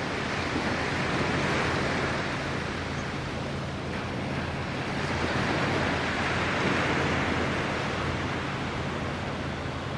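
Small waves washing on the beach, swelling and easing every few seconds, with wind noise and a steady low hum underneath.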